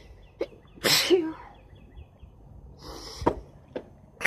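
A woman sneezing in a rapid series: one sneeze about a second in and the next one starting at the very end, with short breathy sounds between them.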